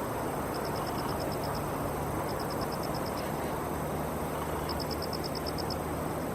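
Steady outdoor rushing noise with an insect chirping over it: short trains of about eight to ten evenly spaced high chirps, repeated four times.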